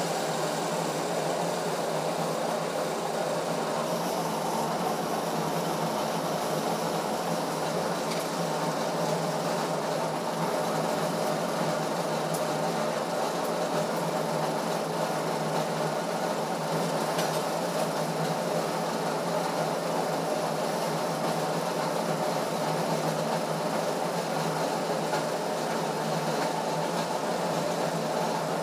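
Diesel injection pump test bench running steadily, its drive turning an Isuzu 4JB1 rotary injection pump: a constant mechanical whir and hum with no change in speed.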